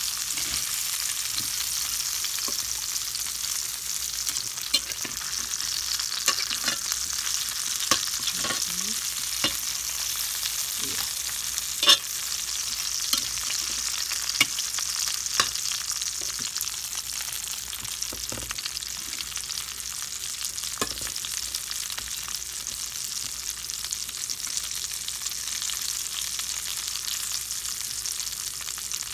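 Potato wedges sizzling steadily in hot oil in a stainless steel skillet. A metal utensil clicks and scrapes against the pan now and then as they are turned, with the sharpest tap about twelve seconds in.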